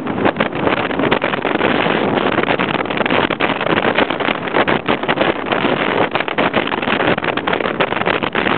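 Motorcycle engine running at road speed, heard from on board and heavily mixed with wind buffeting on the microphone in irregular gusts.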